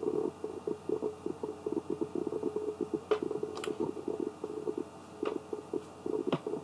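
Low, irregular crackling rumble of rapid short pulses, with four sharp clicks in the second half.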